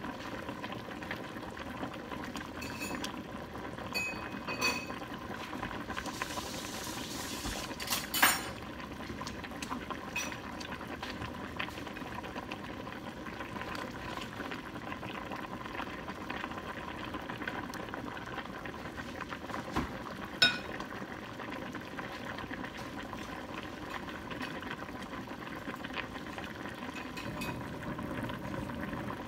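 A stainless steel pot of herbal soup bubbling at a steady rolling boil. A few sharp clinks from a ladle knocking against the pot as the soup is stirred.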